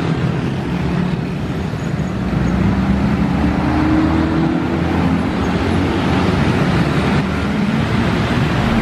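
Heavy mixed traffic of small motorcycle and scooter engines and cars running past in a steady stream. One engine's note rises a little about two seconds in.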